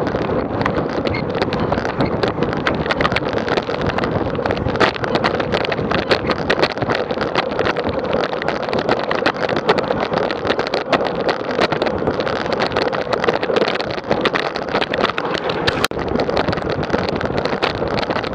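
Steady rushing wind and road noise from riding, buffeting the action camera's microphone with constant crackle. It cuts out for an instant near the end.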